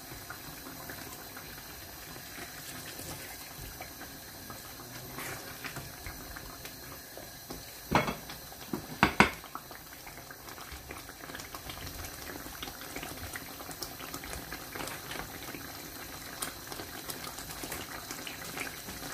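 Thick tomato stew with chicken gizzards simmering in a stainless steel pan, a steady fine bubbling and popping. A few sharp knocks stand out about eight and nine seconds in.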